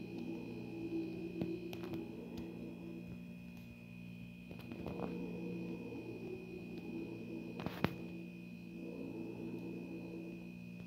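Steady electrical hum with a thin high whine above it, broken by a few faint clicks and one sharper click about eight seconds in.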